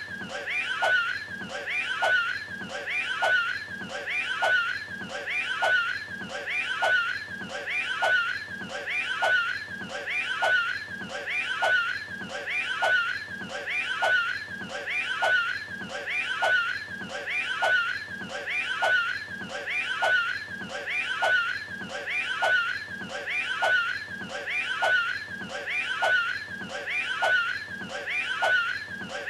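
A short clip of the Cat in the Hat's voice making a wheezy hacking, gagging sound, as if bringing up a hairball, looped over and over about once a second with no break.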